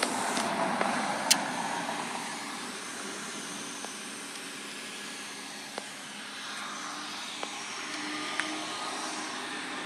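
Steady outdoor background noise, with rustling from the camera being handled in the first couple of seconds, one sharp click soon after, and a few faint ticks later on.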